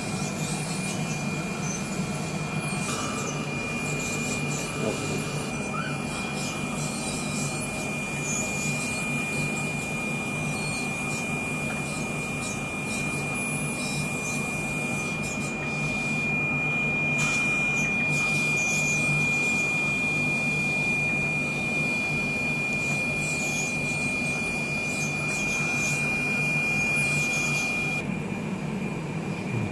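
A dental drill whining steadily at one high pitch while preparing a child's decayed milk teeth, over a steady low hum. The whine cuts off near the end.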